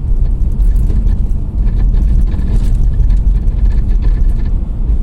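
Hyundai Sonata NF rolling over bumps: steady low road rumble with light knocks and rattles from the right-side wheel, the brake pads shifting in the caliper because the retaining plates that hold them are worn out.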